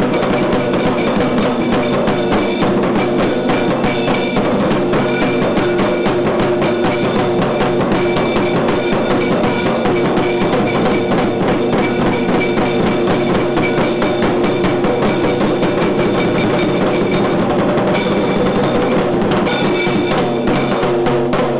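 Kailaya vadyam temple ensemble playing: dense, fast drumming over steady held tones.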